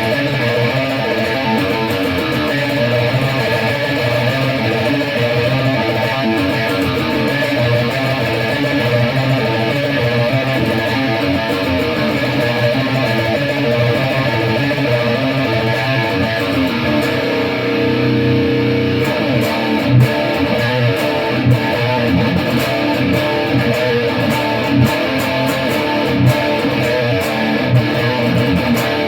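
Electric guitar played through an EVH 5150III 15-watt LBX head at quarter power with the gain at 6, into a Mesa Boogie 1x12 Rectifier cabinet with a Celestion Vintage 30 speaker, miked with a Shure SM58. Continuous riffing, with a held chord a little past halfway and then choppier, more clipped playing.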